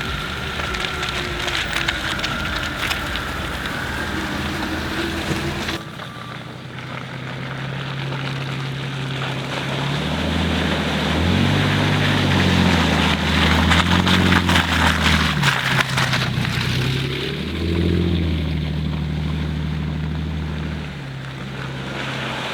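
A 4x4 vehicle's engine running as it drives along a rough track, its revs rising and falling from about ten seconds in, with rattling and road noise throughout.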